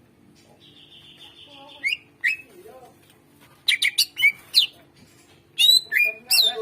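Greater green leafbird (cucak ijo) singing: a buzzy trill about half a second in, then loud, sharp whistled notes that sweep up and down, coming in quick clusters near the middle and again near the end.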